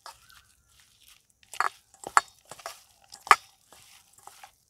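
A hand mixing marinated chicken pieces with chopped onion and coriander leaves in a stainless steel bowl: irregular wet squishing and crunching, with a few louder sharp sounds in the middle.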